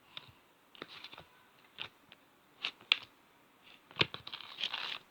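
Slime being poked and squeezed by hand: irregular small clicks and crackly pops, with a denser stretch of crackling about four seconds in.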